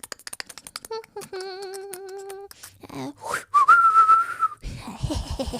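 A string of cartoon sound effects: about eight quick clicks in the first second, then a held wavering tone, a rising glide into a steady high whistle, and a quick run of low thuds near the end.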